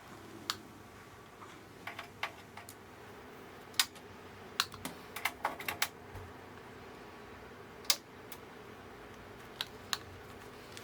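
Scattered light clicks and taps, a dozen or so at irregular intervals, some in quick little clusters, over faint steady background hiss.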